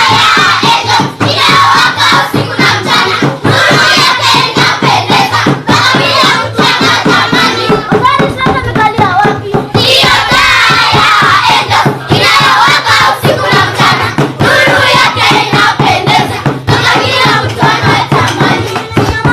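A group of children singing together, with steady rhythmic hand-clapping keeping the beat.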